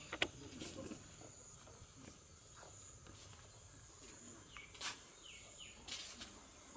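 Quiet outdoor yard ambience: a steady high insect buzz, a few short falling bird chirps, and scattered sharp clicks, the loudest about five seconds in.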